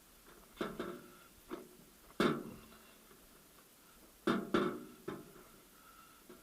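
Sharp metal knocks, about six at uneven intervals, each with a short ring, from tools and steel gearbox parts striking each other during manual gearbox reassembly.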